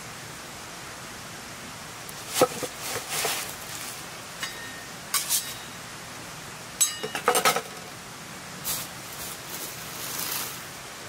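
A wooden cutting board set down on leaf litter with a knock, then steel kitchen knives laid on it with several short metallic clinks, a little ringing after some, and a few soft rustles, over a steady background hiss.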